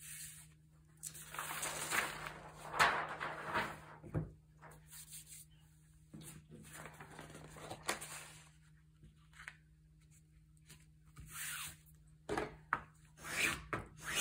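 Paper and book cloth being handled on a cutting mat: several spells of rustling and rubbing as sheets are moved and laid down, with a single knock about four seconds in.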